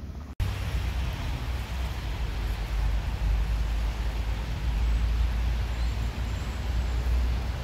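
Steady outdoor street noise with a deep rumble and a hiss, cutting in abruptly just after the start.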